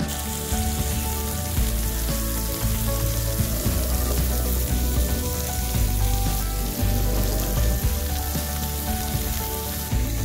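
Wood fire crackling and hissing in the firebox of an EGAN camping wood stove, over soft background music; the hiss cuts off near the end.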